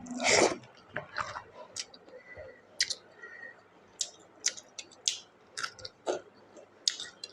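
Close-up chewing and biting of food: wet mouth smacks and short crackling clicks every half second or so, with a louder bite at the start.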